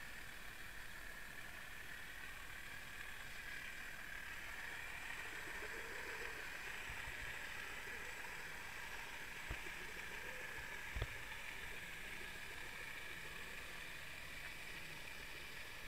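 Steady rushing hiss of water heard through an underwater camera moving along the seabed, with two faint knocks about a second and a half apart past the middle.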